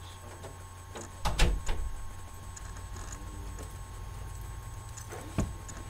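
Handling noise: a heavy thump with a low boom about a second and a half in, followed by a few lighter knocks, and another sharp knock near the end, over a steady low hum.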